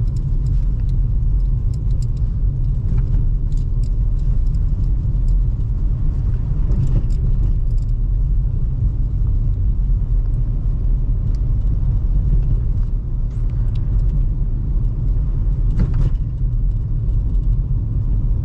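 Steady low rumble of a 2005 Toyota Highlander, with a few faint clicks along the way.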